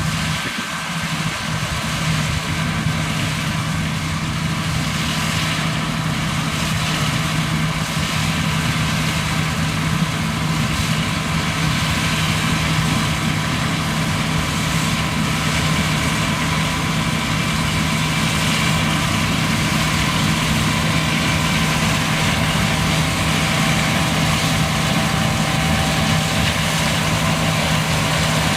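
John Deere combine harvester running steadily: a constant low engine hum with an even mechanical hiss above it.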